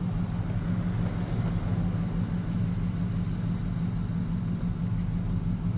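2003 Ford F-150's 4.6-litre V8 engine idling steadily; the truck is throwing a misfire code.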